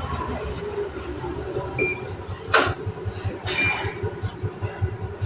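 Machinery running with a low, rhythmic throb and a steady hum. Short electronic beeps sound twice, and a sharp clatter comes about two and a half seconds in.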